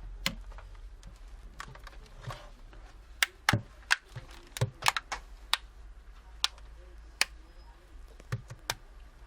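Sharp, irregular clicks and taps of plastic tablet parts being pressed and fitted back together, about fifteen of them, with the loudest cluster in the middle.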